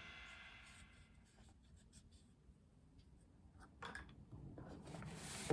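Faint strokes of writing on paper, a few short scratchy rubs in the second half after a near-silent opening, in a small room.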